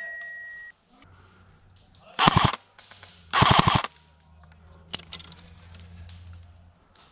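Airsoft rifle firing two short full-auto bursts of rapid, evenly spaced shots, about a second apart, with a single sharp click a second later.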